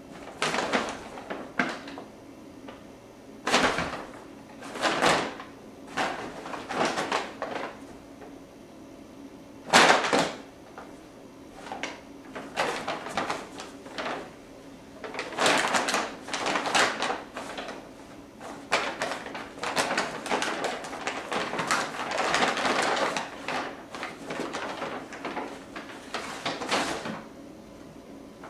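Brown paper shopping bag crinkling and rustling in irregular bursts as kittens scramble and pounce inside it, with a sharp loud crackle about ten seconds in and busier, near-continuous rustling in the second half.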